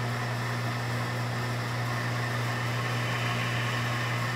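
Eppendorf microcentrifuge running a brief spin-down of a sample tube: a steady motor hum with a faint high whine.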